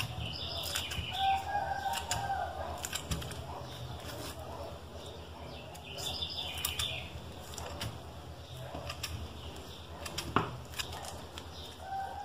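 Scissors snipping through thick, putty-like slime: sharp clicks of the blades closing, with sticky rustling as the slime is handled.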